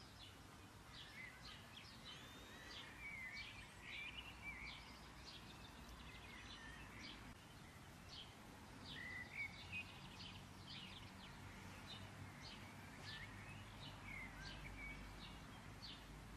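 Faint scattered bird chirps and twitters over near-silent room tone.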